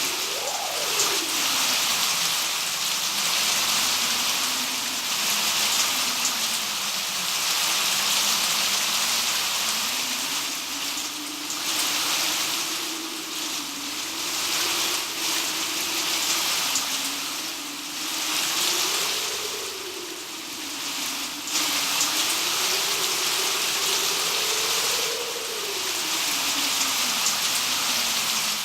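Wind-swept rainstorm: steady heavy rain hiss that swells and eases every few seconds, with a low wind howl that slowly rises and falls in pitch.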